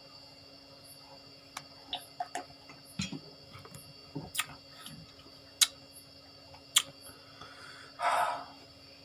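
Close-miked eating sounds: chewing on raw vegetables, with scattered sharp clicks and small crunches and a short rustling burst about eight seconds in.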